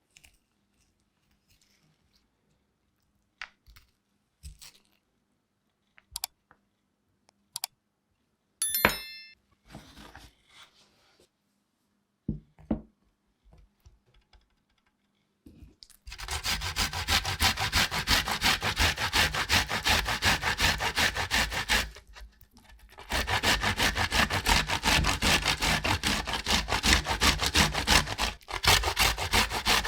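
A few scattered clicks and knocks of kitchen work, then a long run of fast, continuous rubbing strokes, most likely ginger or garlic being grated by hand on a kitchen grater. The strokes stop for about a second partway through, then carry on.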